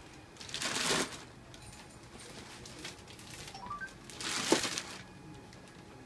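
Plastic parcel bags and packets rustling as parcels are picked up and handled, in two loud bursts about a second in and again around four and a half seconds in, the second with a sharp knock.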